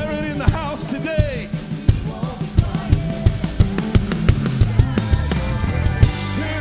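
Live worship band playing an upbeat song, with a steady drum-kit beat under guitars, bass and keyboard and a singer's voice over the top. The low bass grows heavier near the end.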